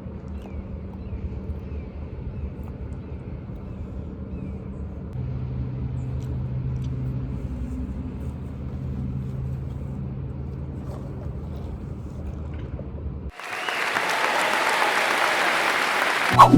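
Low steady hum of an idling car engine, then, about 13 seconds in, a burst of applause that lasts about three seconds.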